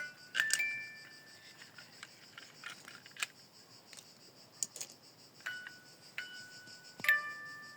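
Sharp clicks and light scraping of small plastic toy vehicles being handled, with a few sparse, held bell-like notes.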